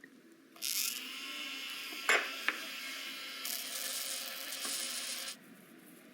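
A small electric motor runs steadily for about five seconds, starting and stopping abruptly, with two sharp clicks partway through.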